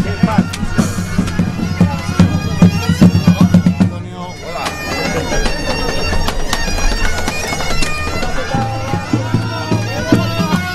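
Bagpipe music: a steady drone under a melody, with a drum beat in the first few seconds. About four seconds in the tune breaks off and a different bagpipe tune carries on.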